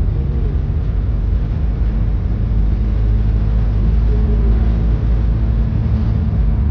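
Interior noise of a small car driving along a road: a steady low rumble of engine and tyres heard from inside the cabin.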